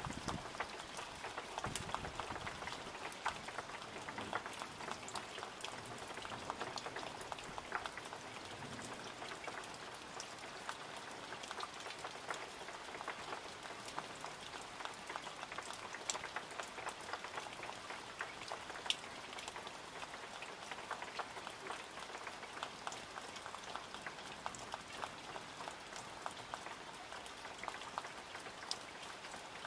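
Steady rain falling: an even hiss of rain with many small drop ticks close by and a few louder single drips.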